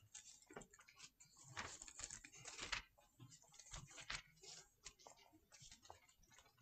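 Faint rustling of Bible pages being turned and leafed through, in scattered soft strokes, busiest a second and a half to three seconds in.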